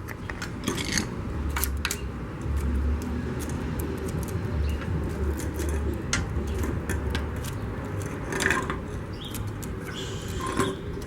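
Irregular light clicks and metallic clinks from hands handling small parts, over a low rumble.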